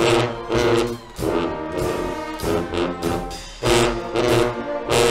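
Guggenmusik brass and percussion band playing: loud, punchy brass chords in short blocks, driven by drums and cymbals.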